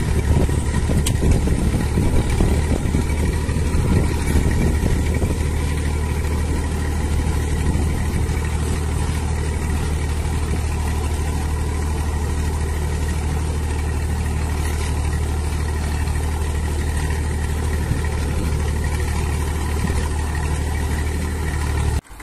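Small tractor's engine running steadily under load as it pulls a single-furrow plough through unbroken meadow sod. The sound drops away suddenly near the end.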